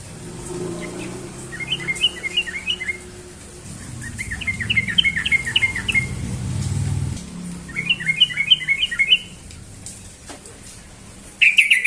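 Yellow-vented bulbul (trucukan) singing its rapid 'ropel' morning song: three quick runs of bright, bubbling notes about a second or two long with pauses between, and a fourth starting near the end. A low rumble sits beneath the first half.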